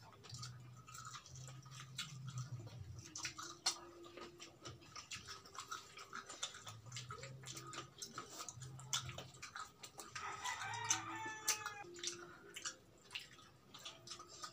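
Close-up eating sounds: lips smacking and mouths chewing fried chicken and cucumber, a string of small wet clicks. About ten seconds in, a rooster crows in the background for a couple of seconds.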